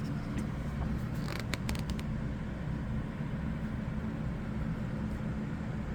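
Steady low background hum, with a few light clicks about a second and a half in.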